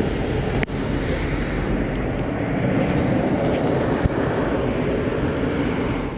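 Steady running noise of a diesel-hauled train, with a sharp click about half a second in and another around four seconds, starting to fade out at the very end.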